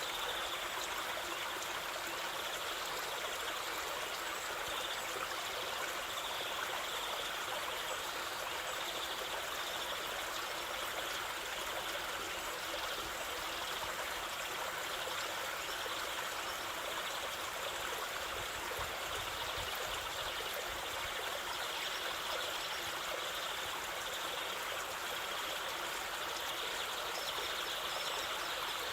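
Waterfall water rushing and splashing in a steady, unbroken hiss, mostly in the middle and upper range with little low rumble.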